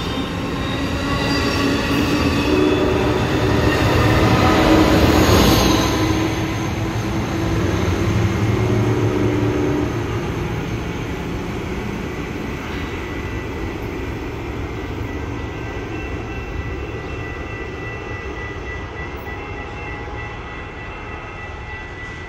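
Amtrak Pacific Surfliner passenger train rolling past and pulling away, loudest in the first few seconds, then fading steadily as it recedes down the track.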